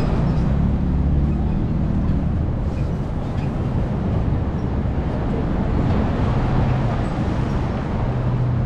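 City street traffic: a steady low rumble of vehicle engines and road noise.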